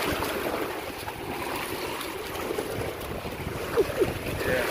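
Lake water lapping and splashing in the choppy shallows around a wading dog and man, with wind rushing over the microphone. A couple of short squeaks come through about four seconds in.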